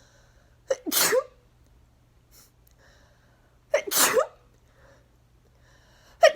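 A woman sneezing over and over in an allergy sneezing fit: two full sneezes about three seconds apart, each a quick catch of breath and then the loud sneeze, with a third sneeze starting right at the end.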